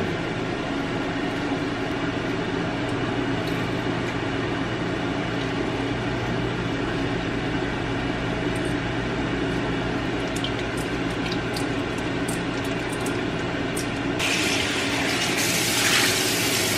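An air fryer's fan running with a steady hum. About fourteen seconds in, the kitchen faucet comes on and water runs into a stainless steel bowl, louder than the hum.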